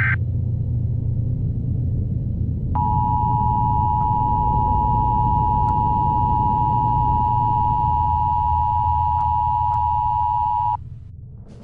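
Emergency broadcast warning signal over a low radio hum: the end of a short burst of alert data tones, then about three seconds in a steady two-note attention tone that holds for about eight seconds and cuts off near the end.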